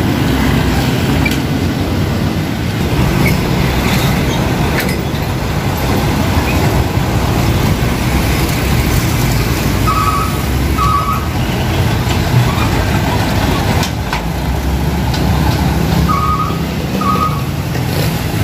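Road traffic of passing diesel dump trucks and motorbikes, a steady engine rumble. Two pairs of short high beeps sound, one pair just past halfway and one near the end.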